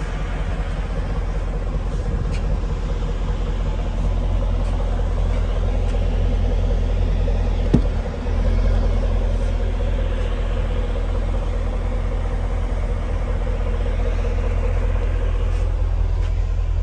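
Dodge Durango R/T's 5.7-litre Hemi V8 idling with a steady low rumble. About eight seconds in there is a single sharp click as the power liftgate is released.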